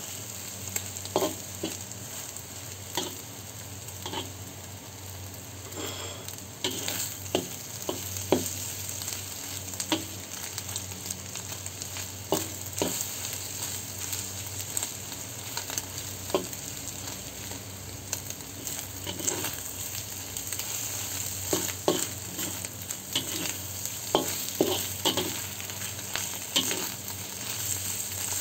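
Shrimp and scrambled egg sizzling gently in oil in a wok on low heat, with a metal spatula scraping and tapping against the wok at irregular intervals as the food is stirred and turned.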